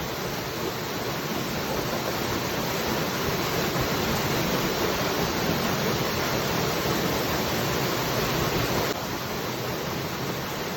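Waterfall: water rushing and splashing in a steady, even roar, dropping slightly in level about nine seconds in.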